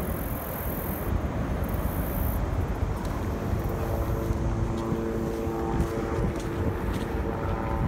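Steady low rumble of a motor vehicle. About three and a half seconds in, several sustained steady tones join it.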